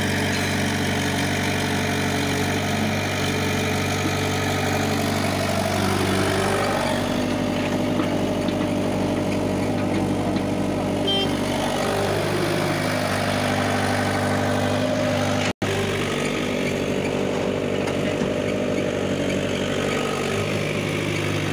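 Diesel engines of an excavator and farm tractors running steadily, with the engine note shifting in pitch now and then as the excavator works. The sound drops out for an instant about two-thirds of the way in.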